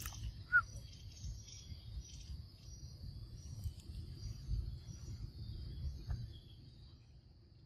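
Forest ambience: a steady high insect drone with scattered short high chirps over a low rumble that fades after about six seconds.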